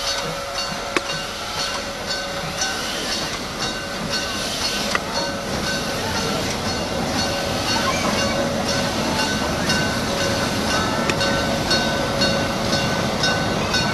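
Steam locomotive and its train rolling slowly across a steel truss bridge: a steady rumble with a regular clicking beat of about two a second and a steady whine underneath.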